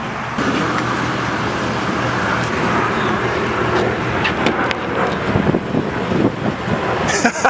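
A car engine running steadily without revving, mixed with outdoor traffic noise.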